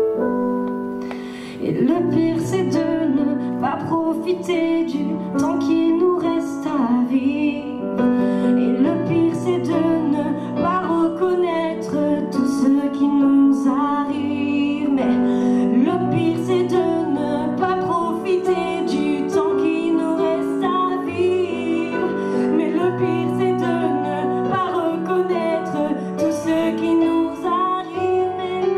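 A woman singing a slow song solo into a microphone over a piano accompaniment, her melody rising and falling in phrases above held chords.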